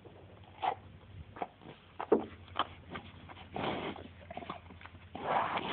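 A tame bull biting and crunching a piece of apple taken from a hand: a few sharp, irregular crunches with noisy chewing close to the microphone.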